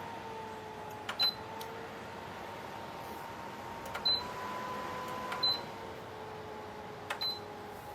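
Aigostar tower fan running with a steady motor hum while its control buttons are pressed four times, each press a click and a short high beep. The hum steps up in pitch after the second press and settles back down after the third as the fan speed changes.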